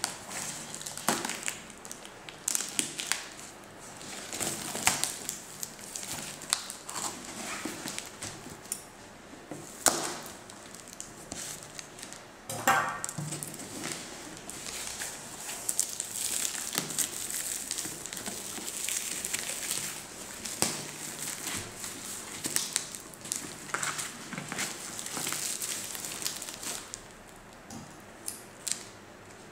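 A cardboard shipping parcel being cut and torn open by hand: irregular scraping, tearing and crinkling of cardboard, packing tape and bubble wrap, with scattered clicks and a short rapid rip partway through.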